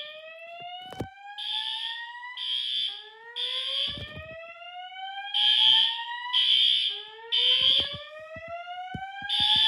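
A System Sensor fire alarm horn sounds a temporal-3 pattern: three short blasts, then a pause, repeating about every four seconds. Over it, a speaker plays the Notifier voice-evacuation whoop tone, which sweeps upward over about two and a half seconds and repeats. A few sharp clicks come through as well.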